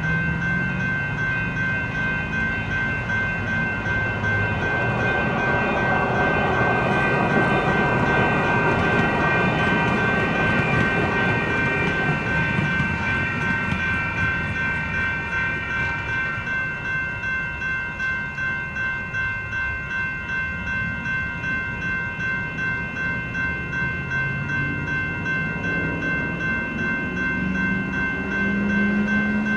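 Electronic railroad crossing bells ringing rapidly and steadily while the crossing is activated. A rumbling noise swells and fades in the middle.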